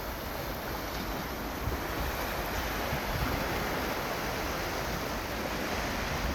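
Sea surf washing onto the shore in a steady wash of noise, with some wind rumbling on the microphone.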